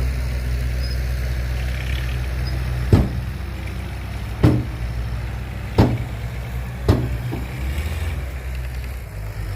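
Heavy diesel engine of earthmoving machinery running steadily, with four sharp bangs spaced a second or so apart.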